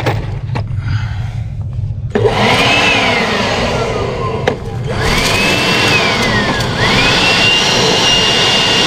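Makita 18V cordless blower run as a vacuum on a carburetor: it switches on about two seconds in, its motor whine rising and falling twice as the trigger is squeezed and eased, then held at full speed near the end.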